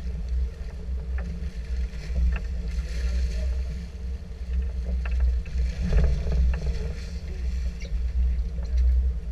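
A steady low rumble of wind and the boat on the microphone, with water splashing against the side as a hooked hammerhead shark thrashes beside the stern. The splashing flares up about three seconds in and again about six seconds in.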